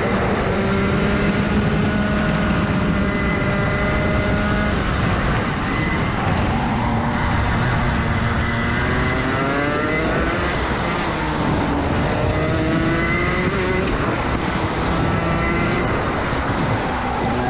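Rotax Max Evo 125cc two-stroke kart engine at racing speed, its revs held high for the first few seconds, then dropping off and climbing again about three times as the kart goes through corners.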